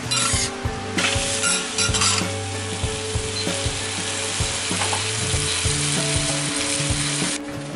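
Okonomiyaki sizzling on a hot teppan griddle: a steady frying hiss, a little louder in patches during the first two seconds, that cuts off just before the end.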